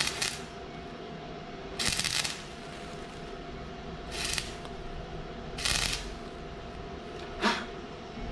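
Stick (arc) welder's arc crackling on the thin steel pipe of a lawn mower handle, struck in about five short bursts of a third to half a second each, as short welds are laid one after another to reinforce the pipe.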